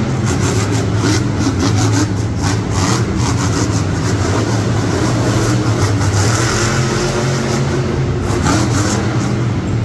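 Monster truck engine running loudly with a deep, steady drone, its pitch rising and falling as it revs.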